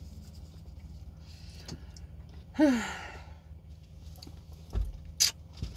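A woman's loud, breathy sigh, falling in pitch, about two and a half seconds in, in rueful exasperation at herself. A couple of short sharp clicks follow near the end, over a steady low hum.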